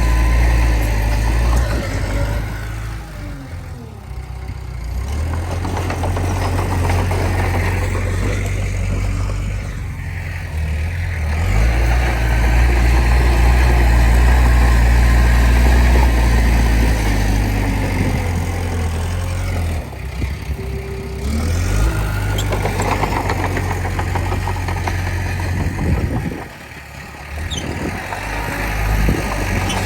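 Diesel engine of a Komatsu D20P bulldozer running under changing load while pushing soil. The engine note drops and picks back up several times.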